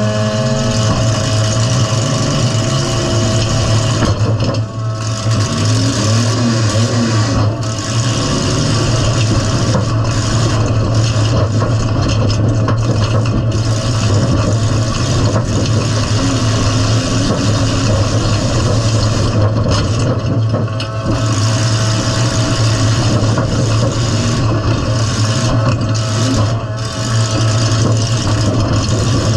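Demolition derby car's engine running loud at fairly steady revs as the car is driven, heard from inside its stripped-out cabin. The engine's steady low hum sits under a dense mechanical din, with a short dip in loudness about four and a half seconds in.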